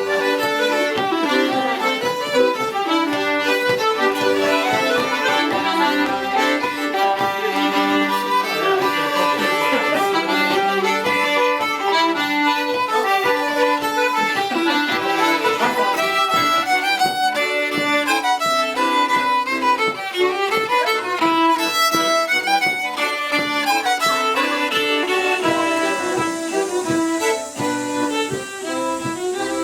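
Fiddle playing a folk tune of many quick notes, with other instruments accompanying.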